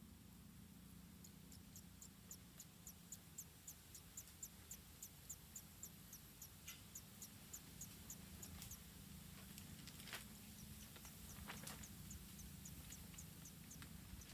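Faint, high-pitched animal chirps repeating evenly about three times a second, with a short break partway through, over a low steady hum.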